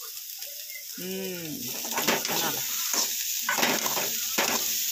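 Finely chopped cauliflower sizzling as it roasts in a little oil in a metal pan, with a metal spatula scraping and stirring it from about two seconds in. About a second in, a short pitched call rises and falls.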